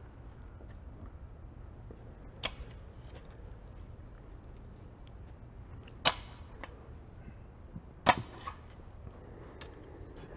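A rake striking and dragging through loose dirt in three sharp strokes, about two and a half, six and eight seconds in, the last the loudest. Under it runs a steady faint chirring of insects.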